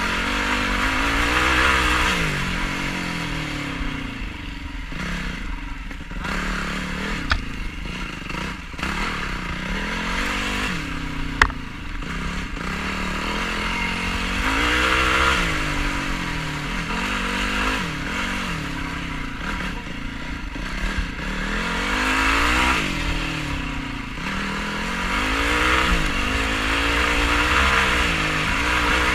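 A Yamaha YFZ450R quad's single-cylinder four-stroke engine being ridden hard, revving up and falling off again and again. Two sharp knocks come about 7 and 11 seconds in.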